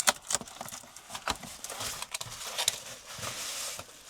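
Packaging being handled as a wall clock is taken out of its box: scattered sharp crinkles and crackles, with a longer rustle near the end.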